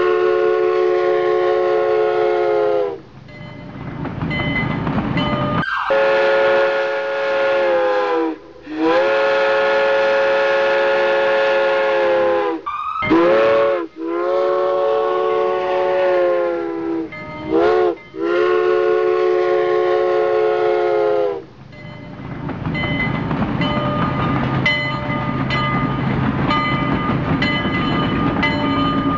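Train whistle blowing five long multi-note blasts, each sliding up in pitch as it opens and down as it closes, with a couple of short toots between them. A steady rumbling train running noise fills the gaps and carries on alone through the last several seconds.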